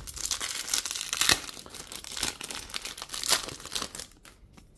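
Foil trading-card pack being torn open and its wrapper crinkled, a dense crackling with sharp louder crackles about a second in and again near three seconds; it dies away shortly before the end.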